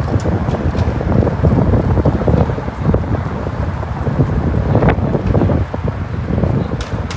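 Wind buffeting the phone's microphone during a bicycle ride, a loud rumbling flutter, with city street traffic underneath.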